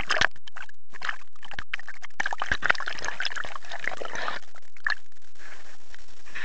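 Water splashing and trickling in an uneven run of small splashes and drips, busiest in the middle.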